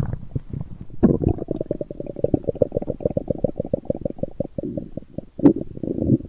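Stomach growling: a long, rapid, gurgling rumble made of many quick pulses, starting about a second in. A single sharp click comes near the end.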